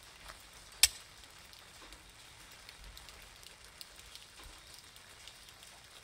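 Steady rain, with many scattered drops ticking on an umbrella overhead. One much louder sharp tap stands out just under a second in.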